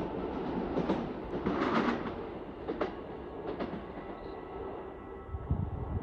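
Joetsu Shinkansen train running away along the tracks, its rumble fading, with a few sharp clacks of wheels over rail joints in the first few seconds and a low thump near the end.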